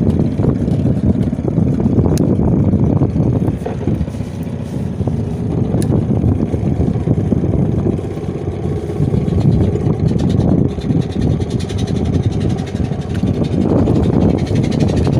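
Small fishing boat's engine running steadily, a loud low rumble.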